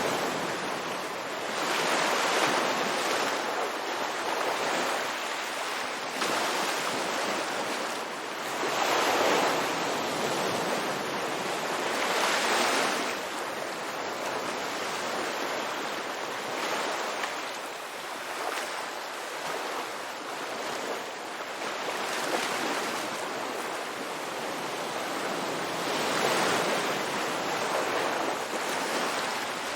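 Ocean waves breaking on a beach, a steady wash of surf that swells and recedes every few seconds.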